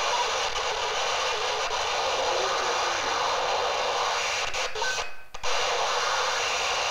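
Shortwave static from a software-defined radio receiver demodulating upper sideband on the 20-metre amateur band: a steady hiss of band noise as the receiver is tuned down across the band. There are a couple of faint short tones, and the hiss cuts out for about half a second about five seconds in.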